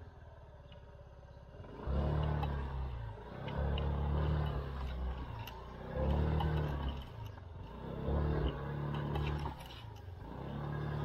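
SYM KRN scooter's engine revving in repeated surges of throttle, about every one to two seconds, as it works over a steep, rocky trail. Scattered clicks and clatter from stones run over it.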